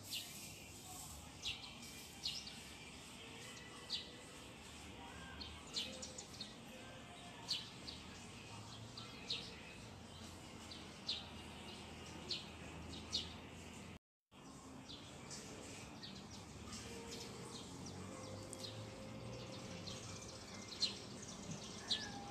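Small birds chirping now and then, short high chirps roughly once a second, over faint steady outdoor background noise. The sound drops out for a moment about two-thirds of the way through.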